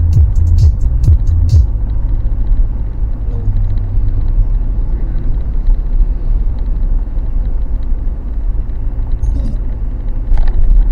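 Steady low rumble of a moving road vehicle's engine and tyres, heard from inside the vehicle. There are a few sharp clicks in the first second and a half, and a short burst of noise near the end.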